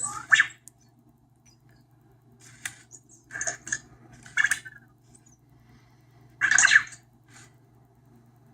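Anki Vector home robot making a series of short electronic chirps and whirring noises: about six separate bursts, the longest and loudest about two-thirds of the way in, over a steady low hum.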